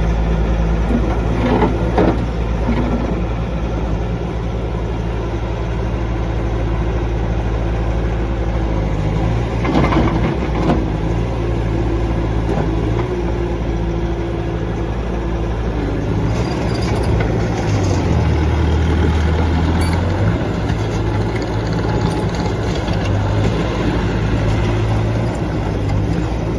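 Bobcat T650 track loader's 74 hp Doosan diesel engine running steadily, its pitch shifting a few times, with a few brief knocks near the start and again about ten seconds in.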